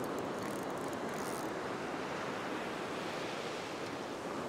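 Ocean surf breaking and washing up the sand: a steady rushing wash of water.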